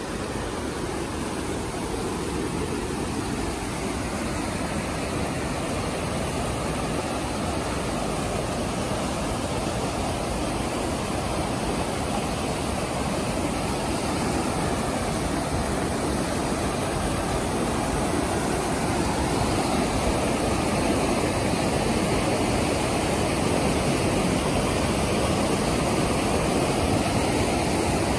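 River water rushing over sandstone ledges in shallow rapids and a narrow white-water chute, a steady rush that grows gradually louder through the second half.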